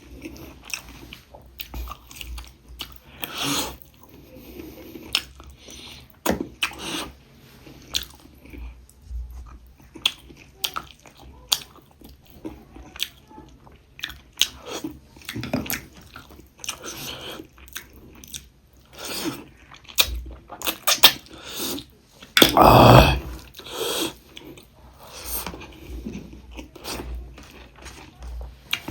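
Close-miked eating: a person chewing and biting into a meal of pork ribs and rice, with irregular wet smacks and crunches. A longer, louder burst about 23 seconds in.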